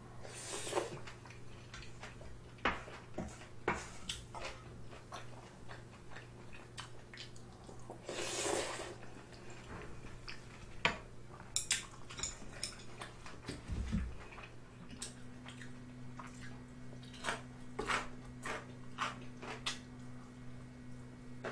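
Close-miked eating sounds: many light clicks of chopsticks and spoon against a metal ramen pot and tray, chewing, and two short slurps, one about a second in and one around eight seconds in.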